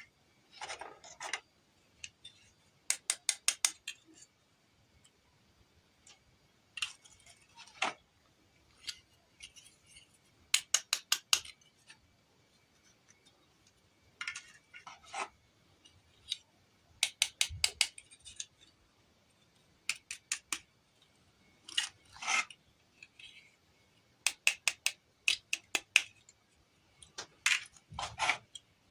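Close-up handling of small miniature toys and packaging: short runs of quick, sharp clicks, about five to eight in under a second, come every few seconds, with soft scraping and rustling between them.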